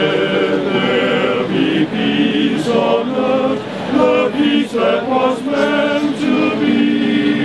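Male voice choir singing a cappella in harmony, holding notes and moving through a melody.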